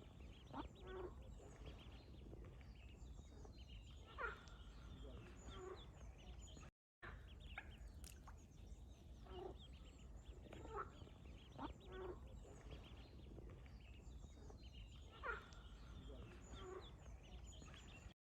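Ducks quacking faintly in short scattered calls over a low steady rumble, with a brief gap about seven seconds in.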